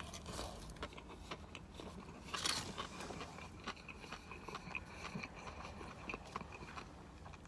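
Close-miked chewing of a bite of crispy panko-breaded fish sandwich: soft crunches and small wet mouth clicks, with one louder crunch about two and a half seconds in.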